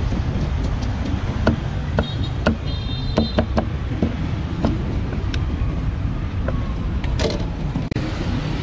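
Steady low rumble of street traffic, with a few sharp knocks at irregular spacing, most of them in the first half.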